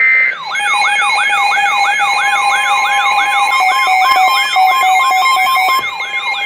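Electronic siren-style alert tone: a brief steady beep, then a rapid yelp that rises and falls about three times a second, layered with steady high tones.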